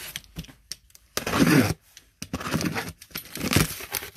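Plastic and cardboard packaging crinkling and rustling in three short bursts, with a few sharp clicks between them, as items are handled out of a box.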